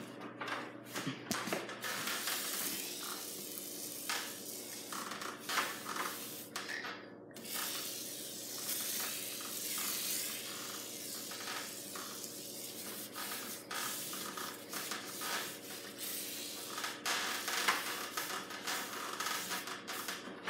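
Aerosol lubricant spraying onto a garage door torsion spring in several long hisses lasting a few seconds each, with rubbing and light clicks between them.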